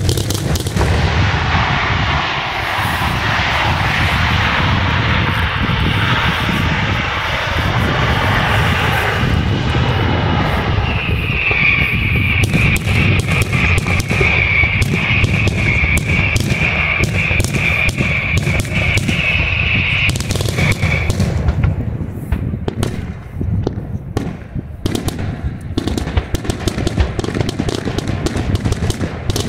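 Daytime fireworks barrage: a rapid, continuous run of bangs and crackling reports from aerial shells. A high, steady whistle rises over it from about twelve to twenty-one seconds in, and near the end the bangs come more singly.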